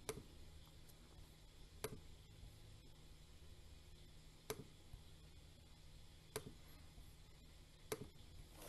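Faint computer mouse clicks, single sharp clicks about every one to two seconds, over near silence.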